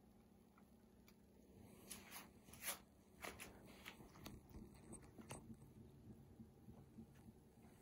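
Faint, irregular clicks and crunches starting about two seconds in: a kitten chewing a piece of spaghetti.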